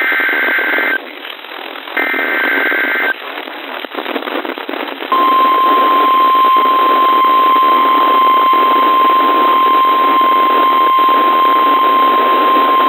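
Emergency Alert System broadcast received over a hissing radio: two short warbling bursts of the SAME digital header tones, then, about five seconds in, the steady 1050 Hz NOAA Weather Radio warning alarm tone that announces a new warning.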